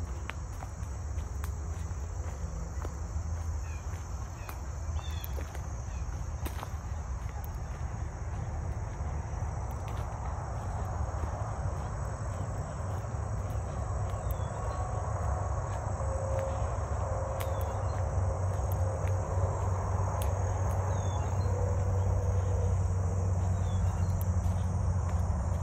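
Steady high-pitched chorus of insects, over a low rumble that grows louder in the second half. A few short, faint chirps come through now and then.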